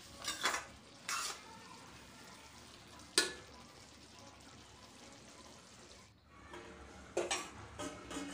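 Steel ladle stirring and scraping a simmering vegetable curry in a steel kadhai, with a few sharp clinks against the pan over a steady low sizzle. Near the end, steel clatters and rings as a steel lid is handled.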